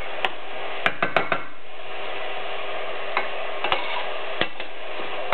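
Shredded cabbage frying in a stainless steel pot, a steady sizzle, with several sharp clicks of kitchenware in the first second and a half and again later on.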